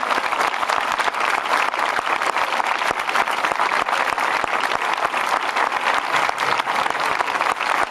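Crowd applauding outdoors: many hands clapping in a dense, steady patter.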